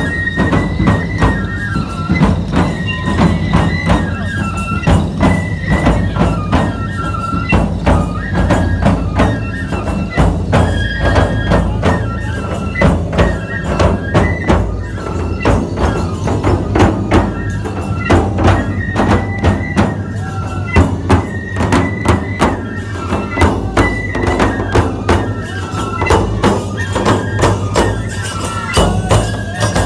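Nebuta hayashi festival band playing live: large taiko drums, hand cymbals and bamboo flutes, a fast steady beat of strikes under a stepping high flute melody.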